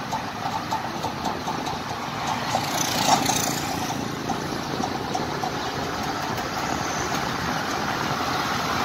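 Motorcycle running on the road: a steady engine and road noise, with a brief louder swell about three seconds in.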